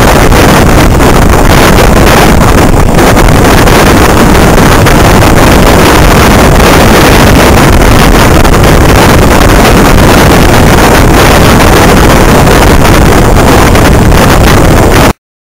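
Loud, steady wind rush on the microphone from a moving passenger train, close to full level, with the train's running noise under it.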